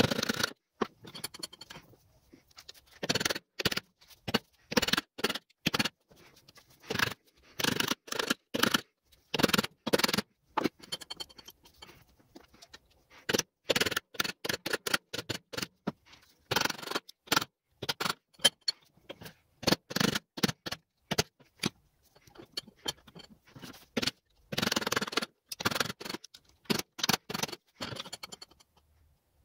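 A small hand-held blade tool scraping the edges of the round cut-outs in a machined metal turner's cube, in short irregular strokes with brief pauses between them.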